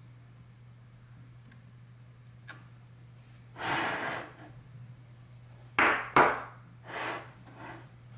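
Handling noises of a brass wax seal stamp at a table: a soft rustle a little before the middle, then two sharp knocks in quick succession about six seconds in, followed by softer rustles. A faint steady low hum runs underneath.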